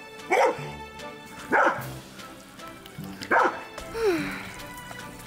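Labrador retriever barking three times, each bark short and loud, then a shorter falling call about four seconds in, at the sprinkler jets of a splash pool that it is barking at for more water. Background music plays under it.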